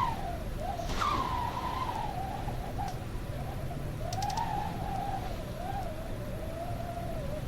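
Howling wind: a wavering, whistling tone that keeps rising and falling in pitch, with a sharp swell about a second in, over a steady low rumble of wind.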